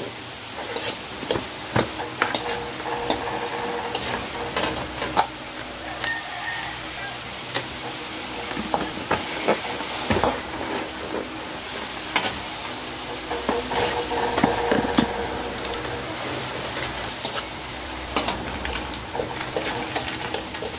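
Sliced peppers and onions sizzling in a metal wok as a spatula stirs them, with frequent sharp clicks and scrapes of the spatula against the pan.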